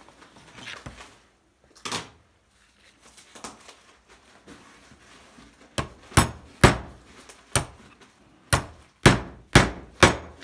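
A hammer striking the wooden handle of a chisel about eight times in quick succession in the second half, driving the chisel into a glued joint between small wooden blocks to split it apart. A few faint knocks come first as the chisel is set in place.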